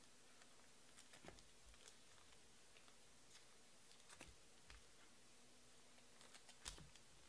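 Near silence: room tone with faint, scattered clicks and a few light taps, the sound of trading cards being handled and set down on a table.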